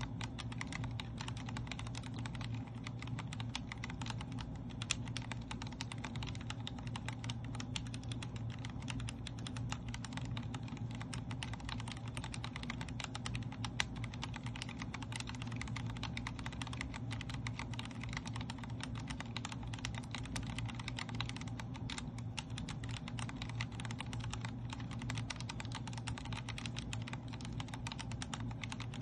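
Continuous fast typing on a Vortex Core 40% mechanical keyboard with linear Cherry MX Speed Silver switches: a dense, even stream of key clicks. A steady low hum sits underneath.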